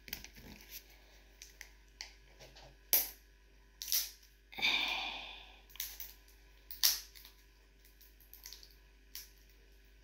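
Scattered clicks and knocks from slime containers and their packaging being handled while someone struggles to open them, with a short rustle of packaging about five seconds in.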